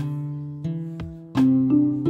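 Background music: a slow tune of plucked notes, each starting sharply and dying away.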